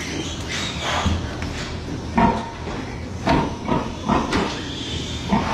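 Pigs grunting in a handful of short separate calls over a steady mechanical hum of barn ventilation.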